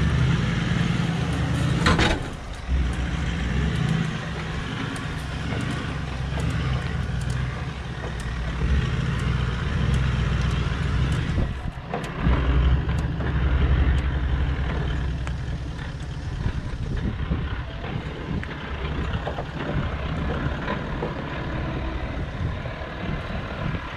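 Toyota LandCruiser 79 series V8 turbo-diesel engine running at low revs as the truck crawls over rocks and rutted dirt, with a short knock about two seconds in.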